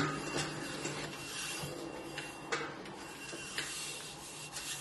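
The wooden wheel head of an old pottery wheel being spun by hand on its shaft: a steady rubbing, rasping whir that rises and falls as it turns.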